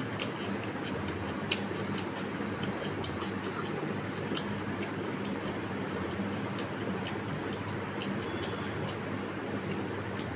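Fingers mixing rice and mutton curry on a metal plate, making many small irregular sticky clicks and squelches over a steady background hum.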